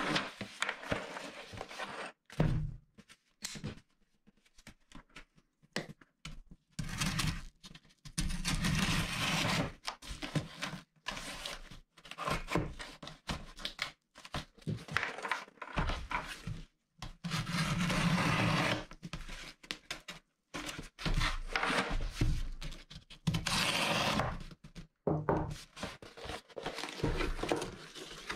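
Cardboard box being handled and opened by hand: irregular bursts of scraping and rustling cardboard, broken by short pauses, with occasional thunks as the box is turned over and set down.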